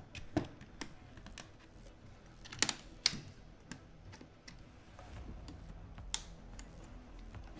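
Plastic clips of an Acer TravelMate laptop's screen bezel clicking as a thin card is worked around the bezel edge to pry them loose: scattered, irregular light clicks, with a few louder snaps about two and a half to three seconds in.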